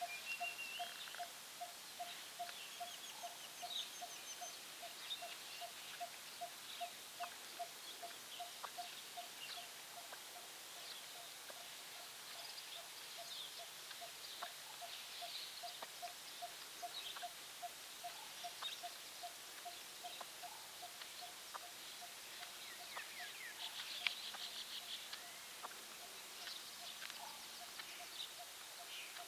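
Birds calling outdoors: one repeats a single low note about three times a second without a break, while others add scattered short chirps and trills.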